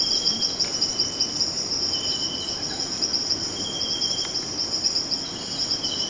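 Insects trilling in the forest: one steady, high-pitched, finely pulsed trill throughout, with a second, lower trill cutting in and out for half-second stretches every second or so.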